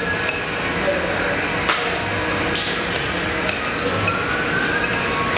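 A ramen spoon knocking and scraping against a ceramic bowl while the last noodles and broth are scooped out, a few sharp clinks over a steady restaurant din.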